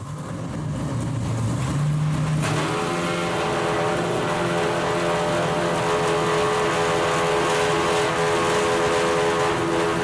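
2004 Zytek 04S's 3.4-litre naturally aspirated V8 running at a steady idle. About two and a half seconds in, the sound suddenly fills out and then holds steady.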